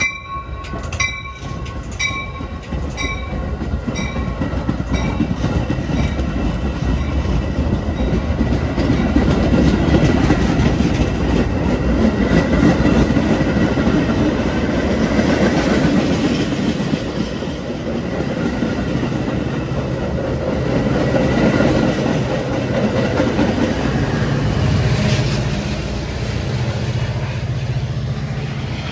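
Metra commuter train passing close by: stainless-steel bi-level cars rumbling and wheels clicking over the rails, loudest midway. Near the end the diesel locomotive pushing at the rear goes by with a steady low engine drone. A bell strikes about once a second and fades out over the first few seconds.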